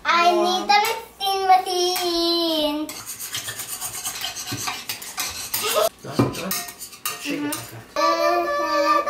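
A child sings a few held notes at the start and again near the end. In between, sticks scrape and stir through shaving cream, clinking against a glass bowl and a tray.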